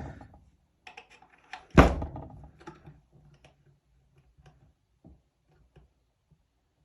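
Knocks and light clicks of an M1 carbine and its parts being handled during reassembly: one sharp, loud knock about two seconds in, then a few faint clicks.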